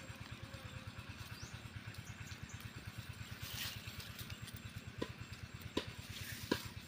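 A small engine running steadily, a low even putter of about a dozen beats a second. A few sharp clicks come through near the end, about a second apart.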